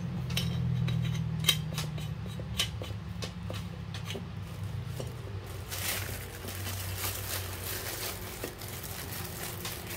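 Small tools and parts being handled: a run of light clicks and clinks in the first half, then a softer rustle from about six seconds in, over a steady low hum.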